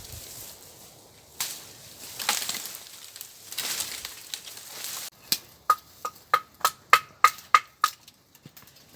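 Dry brush or wood crunching and rustling for a few seconds, then a run of about a dozen quick chopping strikes on wood, about three a second, each with a short ring from the blade.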